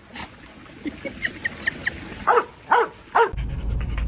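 A dog giving three short yips about half a second apart, after a few fainter high squeaks. Near the end a steady low rumble starts suddenly.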